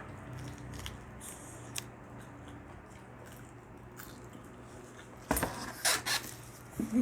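Close-up eating sounds: quiet chewing with small clicks, then two loud crunches of biting into crispy food about five and six seconds in.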